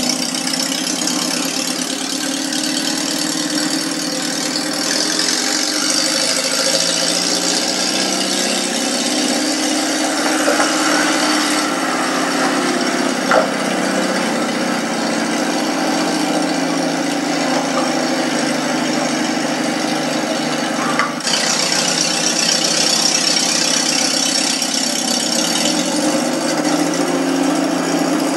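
Moskvich UZAM-412 four-cylinder engine of a homemade pickup running steadily as the truck drives about. There is a single click about halfway through and a short break about three quarters through.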